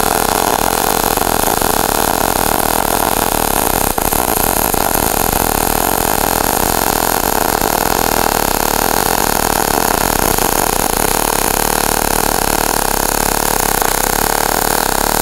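AHP AlphaMIG 250 MIG welder set at 23.5 volts and 370 inches a minute wire speed, running a steady, continuous arc along a bead on 1/8 inch mild steel plate. There is a momentary break about four seconds in.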